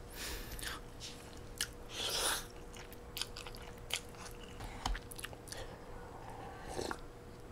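A person eating noodles close to the microphone: a slurp at the start and another about two seconds in, with chewing and wet mouth clicks between.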